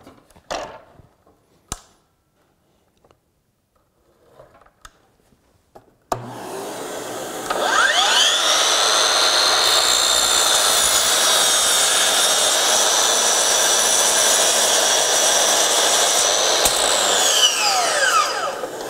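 DEWALT FlexVolt 60V DCS781 12-inch sliding miter saw: a few light clicks, then about six seconds in the motor spins up with a rising whine, runs steadily as the blade cuts through a board, and winds down with a falling whine near the end.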